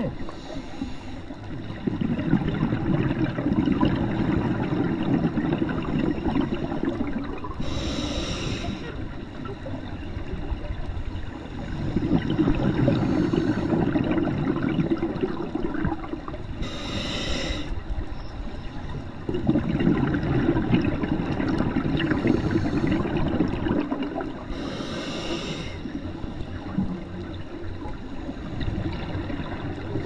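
Scuba diver breathing through a regulator, recorded underwater: a short hiss on each inhale, then several seconds of exhaust bubbles, in a slow cycle repeating about every 8 to 9 seconds.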